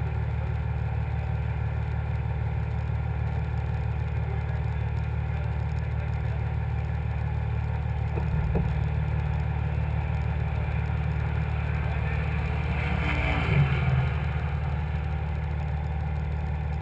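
Cummins diesel pickup engine idling steadily with a deep, low-pitched note, heard close from its own hood. There is a brief swell in level about three-quarters of the way through.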